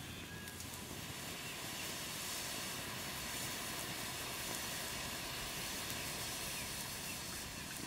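Steady hiss with a few faint crackles from a wood fire burning under cans of Coca-Cola and beef heating on a wire grill.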